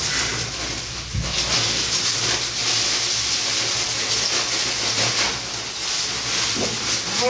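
Bagged ice cubes poured into a bathtub of ice water: a steady rushing clatter and splashing from about a second and a half in.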